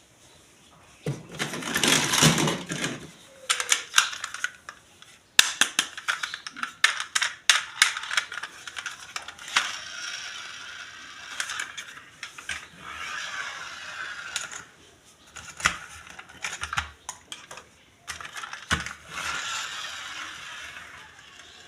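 Toy packaging and plastic toy parts being handled and opened by hand: rustling and crinkling in several stretches, with many small clicks and taps.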